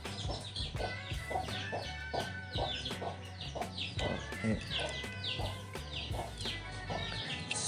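Chickens clucking, with many short high chirps throughout, over background music.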